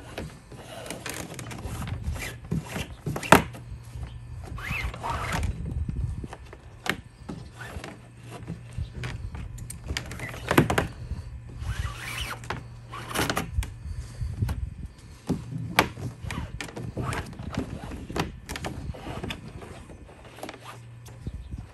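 Bungee cord being pulled and threaded through the plastic deck fittings of a kayak. It makes repeated rasping swishes as the cord slides, with scattered knocks and clicks from the fittings and the hollow plastic hull.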